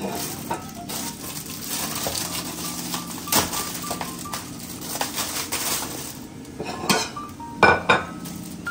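Dishes and cutlery being handled in a kitchen, with clinks and knocks throughout. The sharpest knocks come about three and a half seconds in and twice in quick succession near the end.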